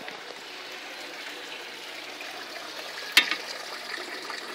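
Small decorative pond fountain splashing steadily as its spout churns the water, with a single sharp click a little over three seconds in.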